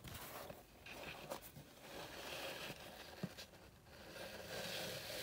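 Paper towel rustling and crinkling as it is handled and laid over the seed, in several swells, with a few light taps.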